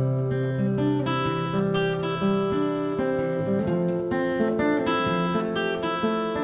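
Background music: an acoustic guitar playing a strummed instrumental passage, no singing.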